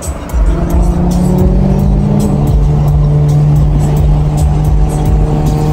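Music with sustained low notes and a regular beat, over the low engine and road hum inside a car cruising on a highway.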